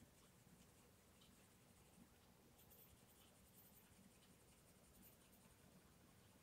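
Faint scratching of a Castle Arts Gold coloured pencil shading back and forth on paper, laying layers of colour into a cloud.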